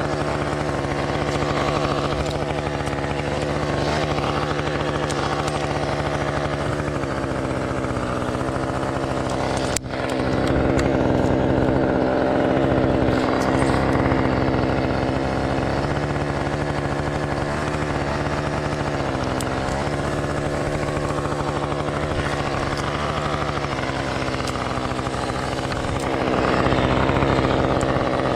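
Two-stroke chainsaw engine running steadily, with a brief drop about ten seconds in, after which it runs a little louder.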